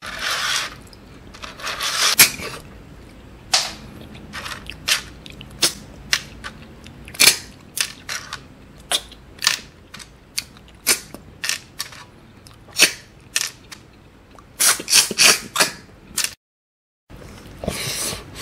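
Close, sharp sucking slurps as the meat is sucked out of small siput sedut snail shells in coconut gravy, one roughly every second, with a quick run of several about three-quarters through.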